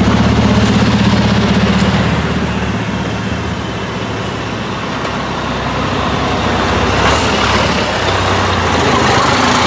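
Race trucks' diesel engines running at low speed as the trucks drive past. One is loud and close at first, then fades. A second comes closer and is loud again near the end, with a brief hiss of air about seven seconds in.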